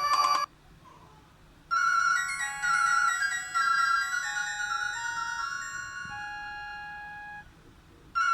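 Nokia 5310 ringtones: a busy electronic tune cuts off just at the start, and after a short pause a new melody of bright single held notes begins about two seconds in, then fades away before the end.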